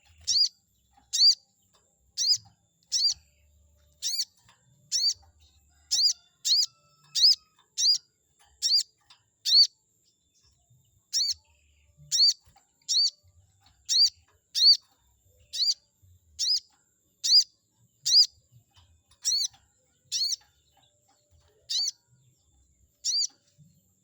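Sogon bird lure recording: a short, high, sharp call of the 'cuiit' kind, repeated about once a second with a short pause about ten seconds in.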